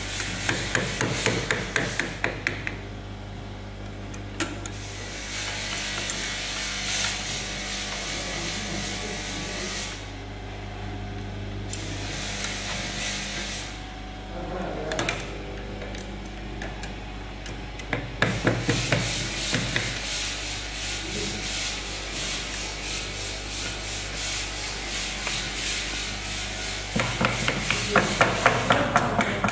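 A mallet tapping on the metal frame and nozzle brackets of a bottle-filling machine as they are set into place. The taps come in quick runs near the start, midway and near the end, with lighter knocks and rubbing of parts between, over a steady low hum.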